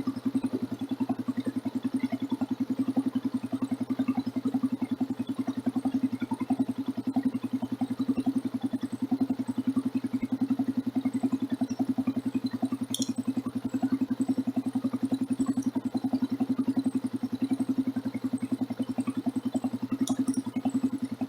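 Motorcycle engine running steadily at an even, unchanging speed, heard close up from a phone mounted on the bike. Two brief sharp clicks come partway through.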